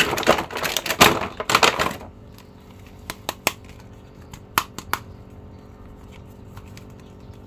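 Thin clear plastic blister packaging crackling and crinkling under the hands for about two seconds, then a few scattered clicks and taps as a plastic action figure is lifted out of the tray and handled.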